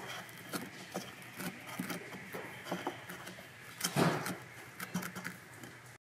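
Foam bead play clay being squeezed and pressed by hand, an irregular crackling with a louder crunch about four seconds in. It cuts off suddenly near the end.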